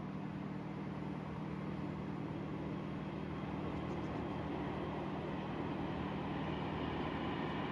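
Narrowboat engine running steadily while the boat is under way, a low even hum.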